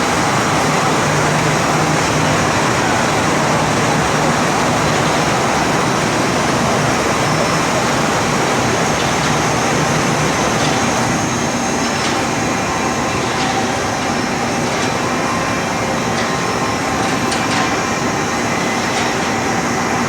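Open-width textile washing machine running steadily, a constant mechanical noise, with a few faint clicks near the end.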